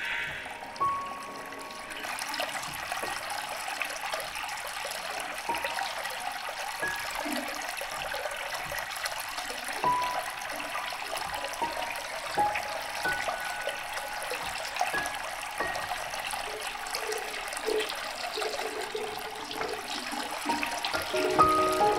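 Water running from a tap into a bathroom sink. It starts about two seconds in and runs steadily, with a few faint held music notes over it that gather near the end.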